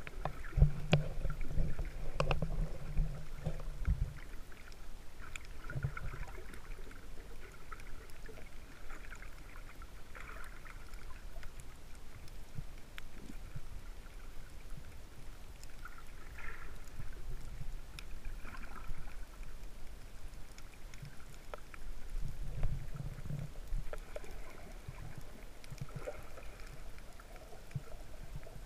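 Muffled underwater sound from a camera held below the surface in a waterproof housing: water sloshing and low rumbling surges, heaviest in the first four seconds and again briefly a little after twenty-two seconds, with faint scattered clicks.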